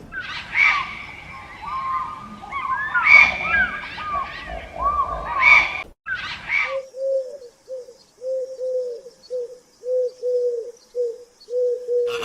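Birds calling: about six seconds of many overlapping chirps, then a series of short, low cooing notes, about two a second, like a pigeon or dove cooing.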